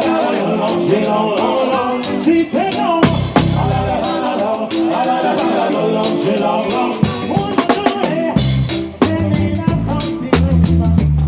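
A live band playing upbeat Caribbean-style music with a full drum kit driving it: a steady run of cymbal strikes over melodic instruments, with heavy bass drum and bass hits coming in about three seconds in and again strongly over the last few seconds.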